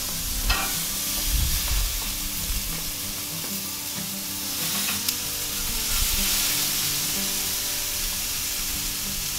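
Raw chicken thighs sizzling as they are laid onto a hot gas grill, a steady hiss throughout, with a couple of short clicks.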